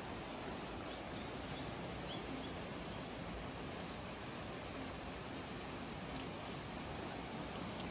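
Steady, even rushing hiss, like rain, with a few faint ticks.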